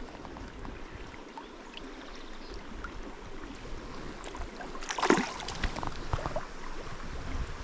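River water running steadily over the stones, with a brief louder splash-like burst about five seconds in.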